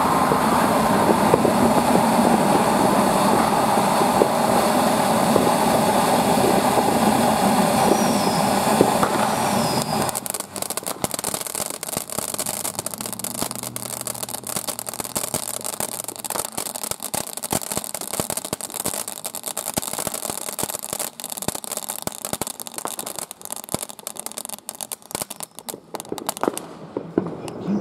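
Ground firework fountain burning, a loud steady rushing hiss of sparks. About ten seconds in it drops to a quieter fizz filled with many rapid crackles as the spray thins.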